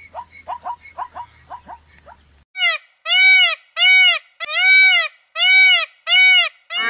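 Plains zebra barking: a fast run of short, rising yelps, about five a second. After about two and a half seconds comes a series of about six loud calls from Indian peafowl, each about half a second long and rising then falling in pitch.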